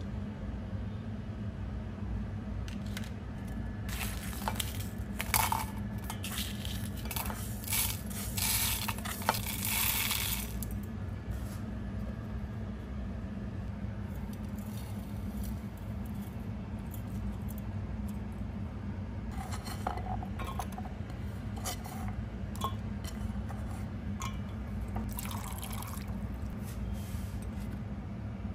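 Whole spices and a metal fork clicking and rattling against a ceramic plate and a grinder jar. The clicks are scattered, with a dense rattle about eight to ten seconds in and a few more clinks later, over a steady low hum.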